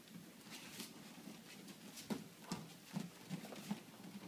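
Faint scattered thumps and shuffles of bare feet and bodies on an aikido training mat, a few close together near the end.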